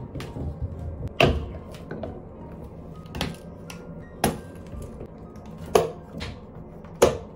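Plastic pump bottles knocking against stainless steel wall-mounted holders as they are set in and their pump heads turned: about five sharp, irregular knocks over soft background music.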